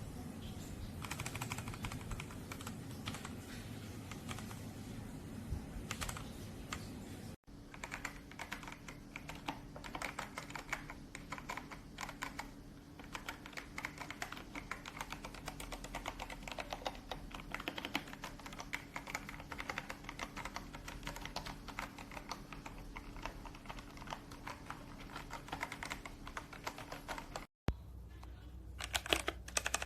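Typing on a Machenike K500 B84 mechanical keyboard: a rapid, continuous run of key clicks and clacks, broken off briefly twice.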